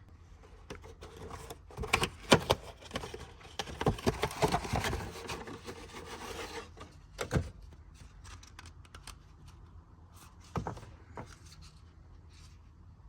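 Hand handling noises from a cabin air filter being handled and slid: rubbing and scraping with sharp clicks, busiest over the first seven seconds, then a few scattered clicks.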